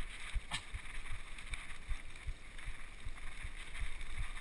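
Mountain bike riding over a bumpy dirt singletrack: irregular low thumps and knocks as the bike jolts over rough ground, with a sharp click about half a second in, under a steady rushing of wind and tyre noise on the microphone.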